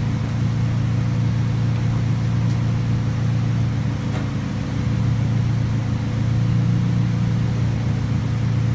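Car engine idling steadily: an even, low hum with no change in speed.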